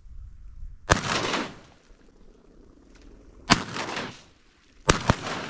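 Shotgun shots fired at incoming ducks: three sharp reports, about a second in, about three and a half seconds in, and near the end. Each is followed by a short echo, and the last has a second, fainter crack right behind it.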